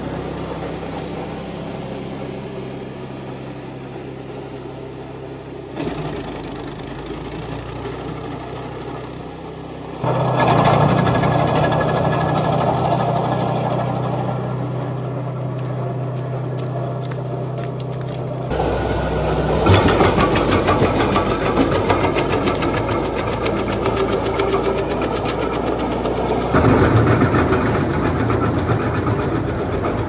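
Gasoline engine of an ARPAL wood chipper running steadily. The sound jumps abruptly several times as the footage cuts between machines, and it is busier and noisier in the second half.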